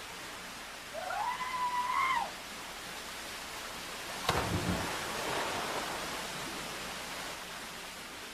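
Steady rush of river water. About a second in comes a single drawn-out call that rises, holds and falls, and just past four seconds there is a sharp knock followed by a brief swell of rushing noise that fades away.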